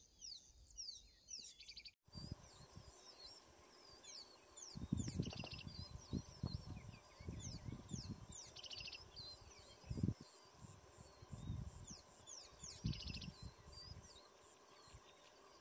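Wild birds chirping and calling, with quick falling notes and short rapid trills. Intermittent low rumbles come and go beneath them from about five seconds in and are the loudest part.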